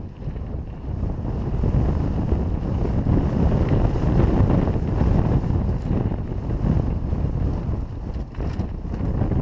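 Dirt bike ridden on a trail, heard through heavy wind buffeting on a helmet-mounted camera's microphone, with the engine running underneath.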